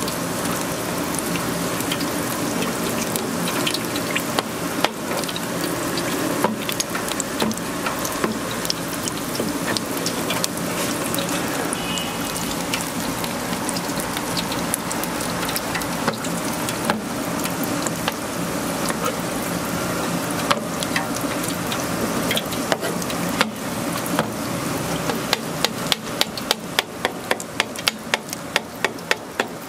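Metal scraper spreading and pressing fish-cake paste on a plastic board, with scattered scrapes and clicks over a steady hiss. Near the end comes a quick, even run of taps, about three a second.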